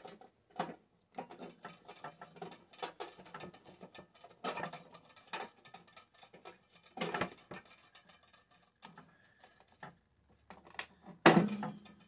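Scattered clicks and knocks of hand tools and metal parts being handled while a microwave oven is taken apart. There are a few louder knocks around the middle and the loudest about a second before the end.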